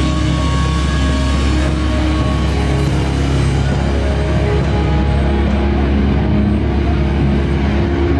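Live heavy rock band playing loudly, with distorted guitar and bass holding sustained notes over a heavy, constant low-end rumble.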